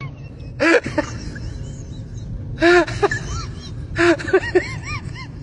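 Short high-pitched vocal calls in three bursts, each rising and falling in pitch, the last a quick run of several calls, over a steady low rumble.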